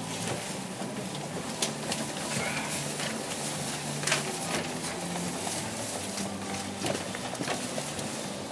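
Hino Blue Ribbon II city bus's inline-six diesel engine idling while the bus stands still, heard from inside the cabin, with scattered clicks and knocks from the bus interior.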